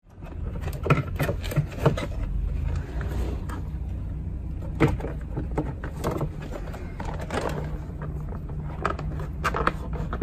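Handling noises of a wire being fed behind the plastic door-jamb trim of a van: repeated scrapes, clicks and taps as the cable and panels are worked by hand, over a steady low hum.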